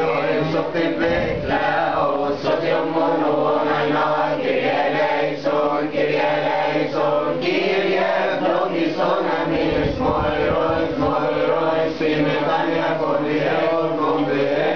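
Group of voices chanting a Coptic Orthodox doxology together, one continuous sung line.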